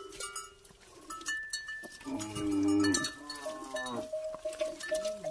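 A calf calls twice, about two seconds in, the second call falling in pitch. The bell on a water buffalo's neck clanks through it and rings on near the end.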